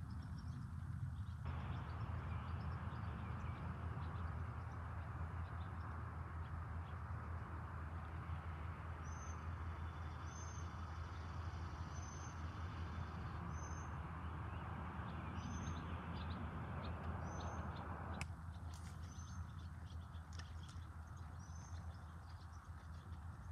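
Steady low outdoor rumble and hiss, with a bird giving a short high chirp about once a second, several times through the middle stretch.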